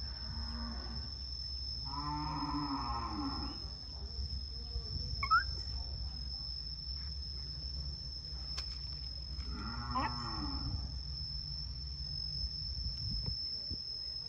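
Two drawn-out moaning calls, each about a second and a half long and several seconds apart, with a short rising squeak between them. A steady high insect drone runs underneath.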